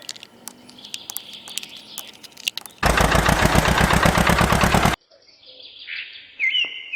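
Small birds chirping in short repeated calls. A loud, harsh noise with a fast even pulse cuts in for about two seconds in the middle and stops abruptly.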